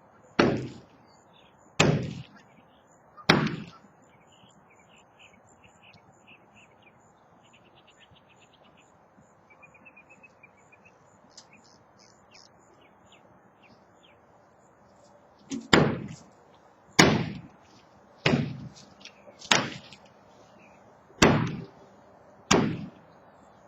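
Heavy hammer blows on a silo wall being broken apart for demolition, each a sharp strike with a short ringing tail. Three strikes come about a second and a half apart, then after a pause of about twelve seconds six more at a similar steady pace.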